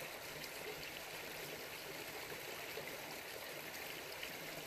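Shallow creek flowing steadily, an even wash of running water.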